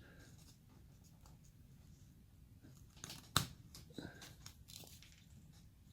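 Faint knife cuts shaving basswood: short scraping cuts, busiest in the second half, with one sharp click a little past halfway.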